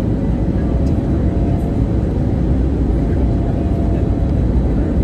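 Steady low roar of an Airbus A321neo's engines and rushing air heard inside the passenger cabin, with a faint steady hum over it.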